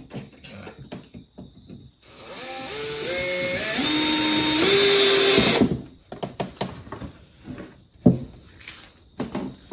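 Electric drill running for about four seconds, its pitch rising in steps as it speeds up, then stopping abruptly, likely working into a wooden board. Light knocks of handling come before and after it, with one sharp knock near the end.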